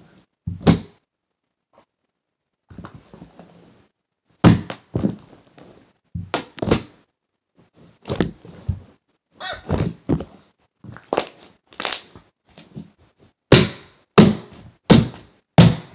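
A large mixed slime being slapped and thumped by hand to work up a bubble: a series of sharp slaps, sparse at first and coming about once a second near the end.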